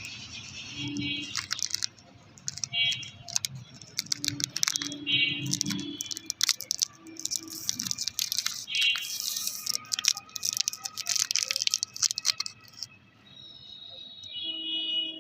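Candy wrappers crinkling and toffees rattling as they are handled, in many quick crackles and clicks, thickest about two-thirds of the way through.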